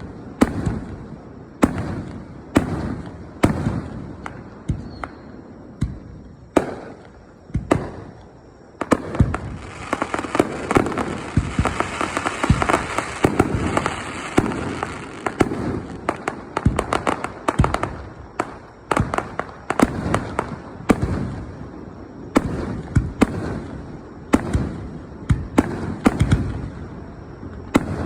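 Aerial fireworks bursting in a string of sharp booms every second or so, with a denser stretch of rapid pops and crackle from about nine seconds in that lasts some ten seconds.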